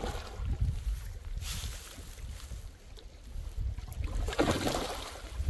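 Wind rumbling on the microphone beside the water, with two brief hissing rushes, about a second and a half in and again near the end.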